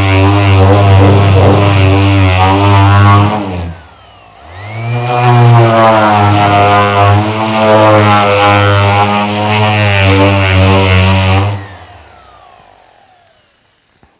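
Metabo SXE 450 Turbotech random orbital sander, on its 6 mm orbit with P40 paper, running under load as it strips enamel paint off a wooden plank. It is switched off about three and a half seconds in and winds down. It restarts a second later with a rising whine up to speed, runs steadily again, and is switched off near the end, spinning down to quiet.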